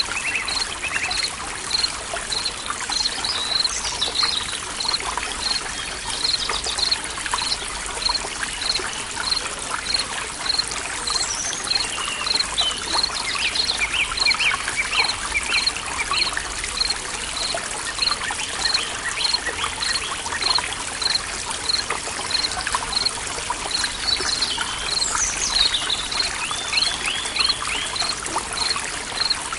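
A small stream trickling steadily, with forest birds calling. A short high chirp repeats about twice a second throughout, and rattling trills and quick whistled glides come in a few times, clearest in the middle and near the end.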